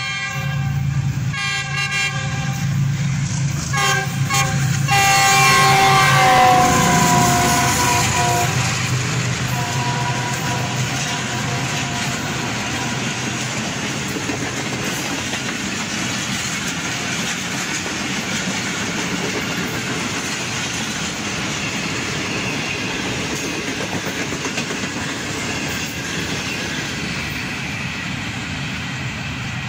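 A GEU-40 diesel locomotive sounds its chime horn in several short blasts as it approaches, then one long blast that drops in pitch as it passes, the loudest moment. The long rake of Pakistan Railways passenger coaches then rumbles and clatters steadily past over the rail joints.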